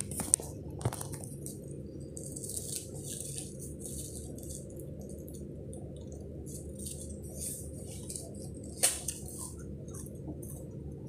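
Scattered soft rustles and hisses over a steady low hum, with one sharp click about nine seconds in.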